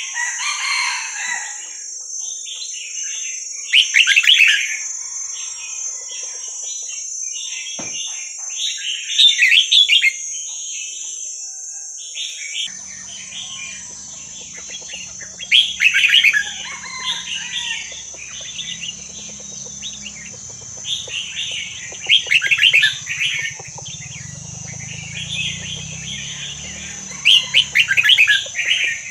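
Red-whiskered bulbul singing: quick chattering phrases, with a louder burst about every six seconds.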